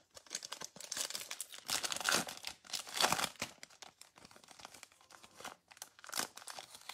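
Foil wrapper of a Donruss Optic basketball card pack crinkling and tearing as it is ripped open by hand, in irregular bursts of crackle.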